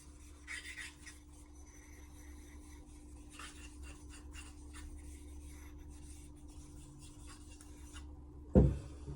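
Light, irregular rubbing and rasping strokes across a whetstone, over a steady low hum, ending in a single loud thump about eight and a half seconds in.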